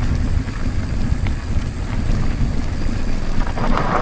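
Wind buffeting the microphone of a camera on a moving mountain bike: a loud, fluctuating low rumble, with a brief rougher hiss near the end.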